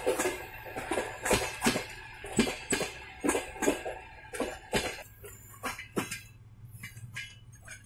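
Wheels of passenger-train coaches clacking over the rail joints in quick pairs, about a second between pairs, growing fainter as the last coach rolls away. The clacks die out about six seconds in, leaving a faint low hum.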